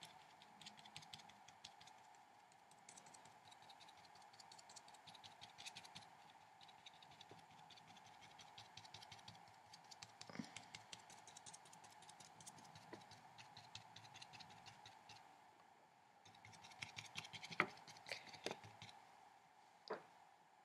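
Faint, scratchy dabbing of a watercolour brush on paper: a run of small ticks and scrapes, with a few louder taps a few seconds before the end. A faint steady hum runs underneath.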